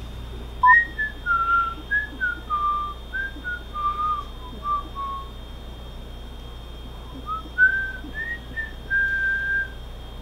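A woman whistling a tune: a phrase of gliding notes lasting about four seconds, a pause of about two seconds, then a shorter phrase ending on a held note.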